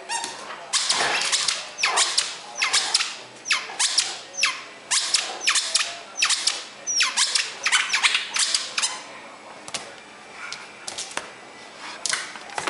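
Dog playing with a small toy on a tile floor: a run of sharp squeaks and clatters about once a second, thinning out near the end.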